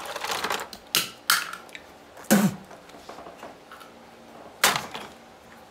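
Tools and cable being handled on a wooden workbench: a scatter of sharp clicks and knocks, about five in all. The loudest is a knock about two and a half seconds in, and a sharp click comes near the end.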